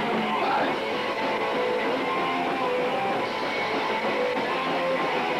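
Punk band playing live, with strummed electric guitar to the fore.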